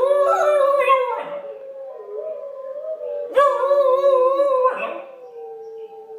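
Pembroke Welsh Corgi puppy howling along with recorded wolf howls played on a computer. Two loud, wavering howls, one at the start and one about three and a half seconds in, over a long steady howl.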